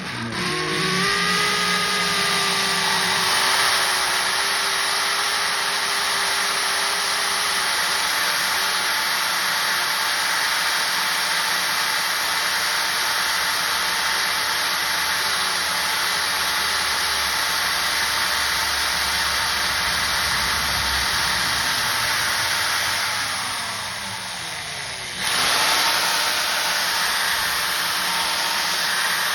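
Electric drill running steadily with a small bit, drilling a starter hole into a broken-off mower wheel bolt for a bolt extractor. Near the end its pitch falls as the motor slows down, then it starts up again.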